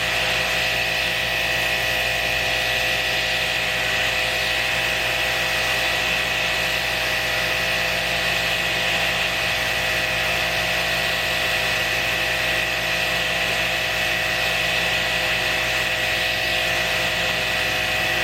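Small 1500 psi electric pressure washer running steadily, its motor and pump giving a quiet, even whine of a few fixed tones over the hiss of the water jet.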